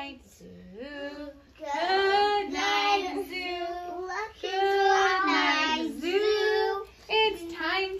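Young children singing in long held notes with a high, childlike pitch, then shorter sung syllables near the end.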